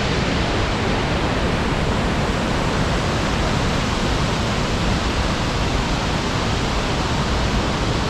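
Steady rush of falling and running water from the Wulai Waterfall and the river in the gorge below.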